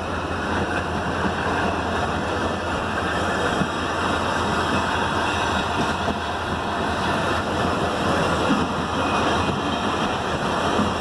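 Passenger train coaches rolling past close by: a steady noise of wheels running on the rails.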